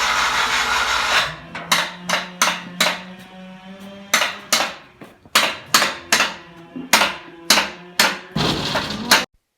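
A homemade horizontal band sawmill runs with a steady hum and stops about a second in. About a dozen sharp, irregularly spaced knocks follow, each with a short ring, then a brief rushing noise, and the sound cuts off suddenly.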